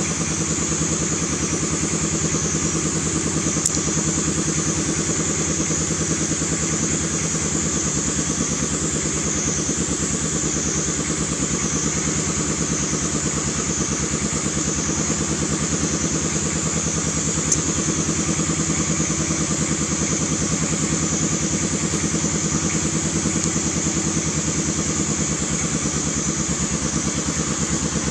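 A small engine running steadily at idle, with an even hum that does not change, and a steady high-pitched shrill above it.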